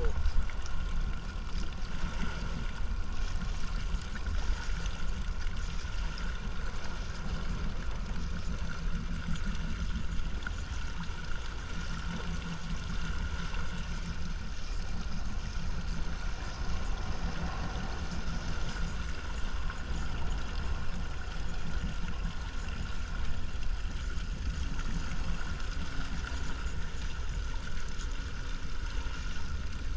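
Yamaha boat motor running steadily under way, with water rushing past the hull.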